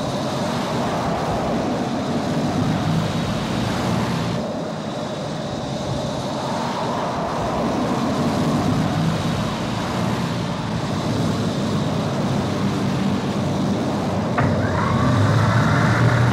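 Steady mechanical drone and hiss of a sci-fi vehicle sound effect, with a brief rising whine near the end.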